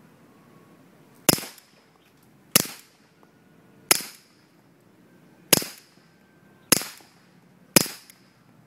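Pistol with a suppressor firing subsonic rounds: six sharp, muffled shots about a second apart, each dying away quickly.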